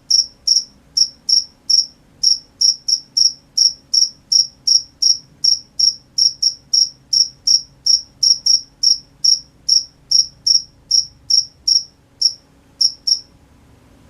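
A cricket chirping: short, high-pitched chirps at a steady rate of about two to three a second. The chirping stops about a second before the end.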